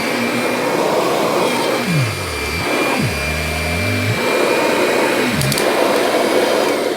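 Kirby Diamond Edition upright vacuum cleaner running on a rug, with a steady high whine; its lower motor note dips and recovers several times. Near the end the motor shuts off and winds down.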